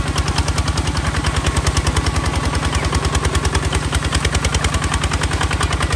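Kubota ZT 155 DI walking tractor's single-cylinder diesel engine running steadily under load in deep paddy mud, a fast, even chugging of about a dozen beats a second.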